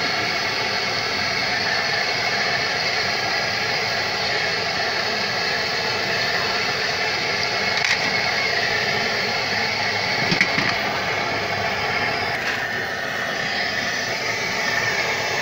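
Hot oil sizzling steadily on a large flat street-stall griddle as a batch of food fries in it, with a couple of short clicks about halfway through.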